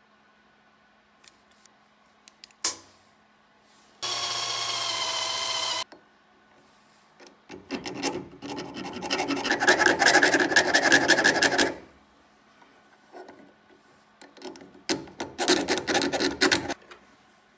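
A hand file rasping back and forth on a silver bar in two bouts of quick strokes, the first about four seconds long and the second shorter near the end. Before them come a few light clicks and a steady two-second whine that starts and stops abruptly.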